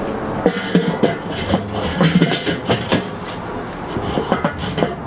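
Enamelled steel lid of a Weber kettle grill being lowered onto the bowl and settled, a run of irregular metal clanks and knocks.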